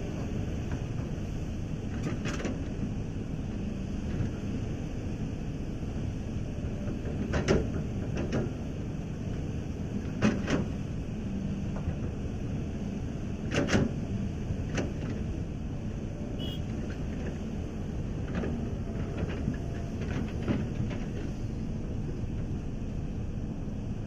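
Hitachi ZX350 excavator's diesel engine running steadily as it loads sand into a dump truck, with a series of short, sharp clanks and knocks from the bucket and its linkage as it dumps and swings, three of them louder than the rest.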